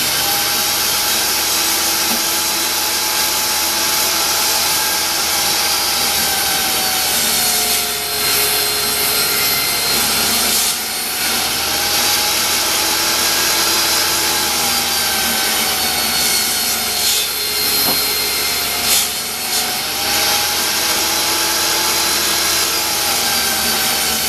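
Table saw running, ripping a pine 1x12 into 1.5-inch strips along the fence. The steady whine of the blade sags in pitch a few times as it bites into the wood on each pass.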